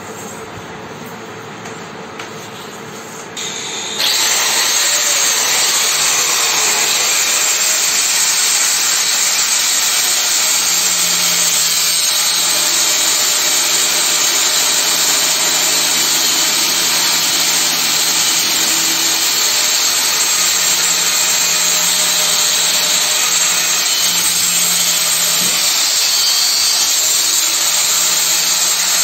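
Angle grinder cutting through the casing of a small submersible water pump's motor. It is quieter for the first few seconds, then a loud, steady grinding sets in about four seconds in and goes on unbroken.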